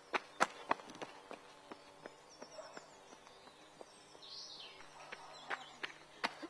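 Running footsteps on a stony dirt trail, quick sharp footfalls as a runner passes close by in the first second, then sparser and fainter. Birds chirp faintly in the quieter middle, and footfalls pick up again near the end as another runner comes down the trail.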